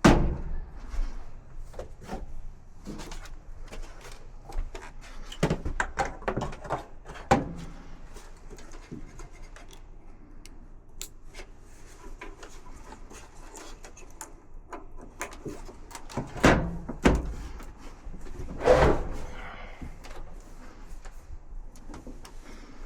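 Hand-work clatter: scattered clicks, knocks and rubbing, with a few louder thunks, two close together about 16 to 17 seconds in and another near 19 seconds.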